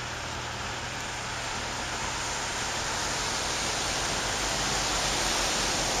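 Steady hiss of car tyres on a rain-wet road, slowly growing louder.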